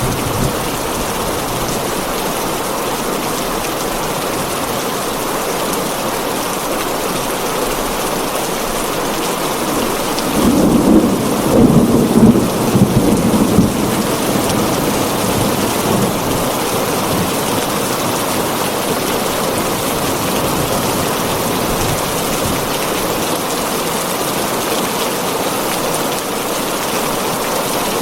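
Heavy rain drumming steadily on a tin roof, with a rumble of thunder swelling up about ten seconds in and dying away over the next few seconds.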